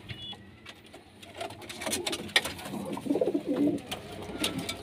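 Domestic pigeons cooing, loudest about three seconds in, with a few sharp clicks and knocks.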